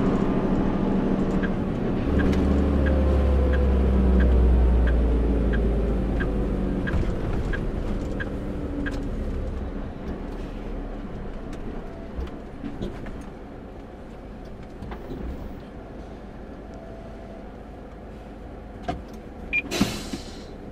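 Heavy truck's diesel engine running down in pitch as the rig slows, with a deep rumble in the first few seconds and an indicator ticking about twice a second. The engine then runs quietly as the truck comes to a stop, and near the end a few clicks are followed by a short, sharp air hiss as the air brakes are set.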